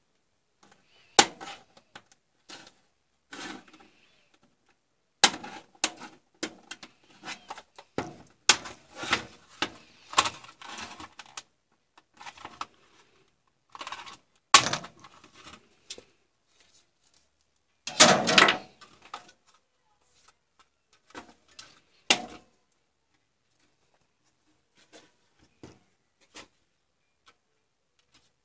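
Plastic case of a digital photo frame being pried apart by hand with a small tool: a string of sharp clicks as the case edges come apart, with scraping and handling noise and one longer scraping stretch a little past the middle. The clicks thin out to a few faint ticks near the end.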